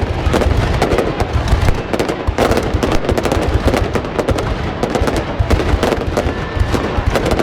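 Fireworks going off: dense, rapid crackling and popping over repeated low booms.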